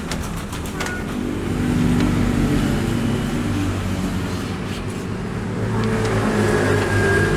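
A motor vehicle engine running, swelling louder about two seconds in and again near the end, with a few sharp clicks at the start.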